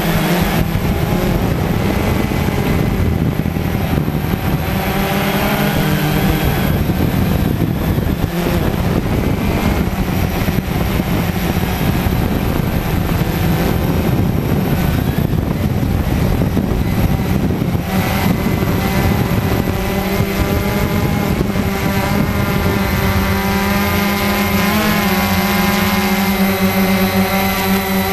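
Cheerson CX-20 quadcopter's brushless motors and propellers whining at close range, heard from the camera on the drone. The pitch shifts as the throttle changes, with a rushing wind noise over it in the first half. From about two-thirds of the way in, the tone grows clearer and steadier.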